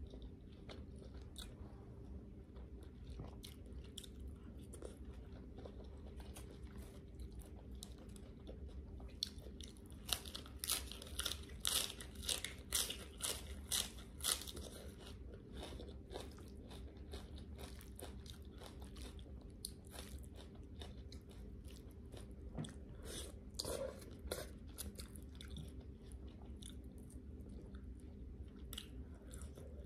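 A person chewing a mouthful of Thai spicy noodle salad close to the microphone, with wet chewing throughout. About ten seconds in comes a run of loud, sharp crunching bites lasting several seconds, and a few more crunches come around two-thirds of the way through.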